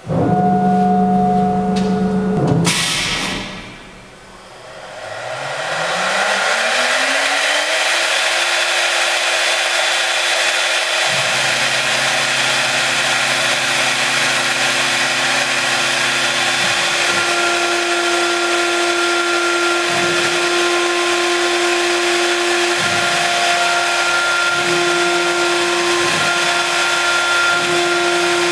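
CNC router spindle spinning up with a rising whine after a brief hiss, then running at a steady high pitch while milling a wooden board. Underneath, the axis motors drive the gantry and carriage, their hum stopping and changing pitch every few seconds as the moves change.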